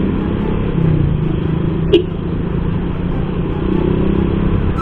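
Yamaha Jupiter MX single-cylinder four-stroke motorcycle engine running steadily under way, heard from the rider's seat with road and wind rumble on the microphone. A single short knock about two seconds in.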